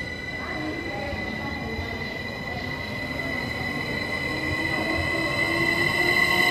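SBB Stadler FLIRT electric multiple unit pulling away from the platform. A steady high electric whine from its traction equipment runs throughout, and a lower tone rises in pitch as the train gathers speed, growing louder toward the end.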